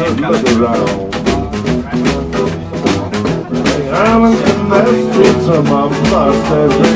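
Live blues band playing to a steady beat.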